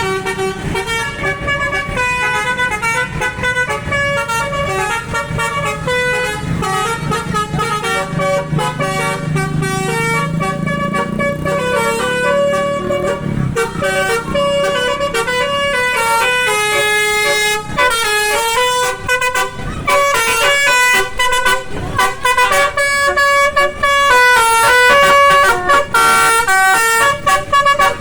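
Solo Putra Makmur bus's Basuri musical 'telolet' horn playing a viral tune, a quick run of stepped notes that keeps going and grows louder near the end. The bus engine rumbles underneath in the first half.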